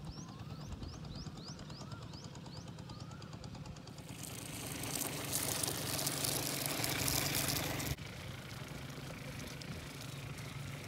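Small motor of a toy model truck humming steadily as it drives over dirt. A louder rushing noise comes in about four seconds in and stops abruptly about four seconds later.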